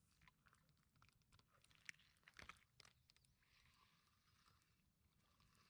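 Near silence, broken by a few faint scattered clicks, the strongest about two seconds in.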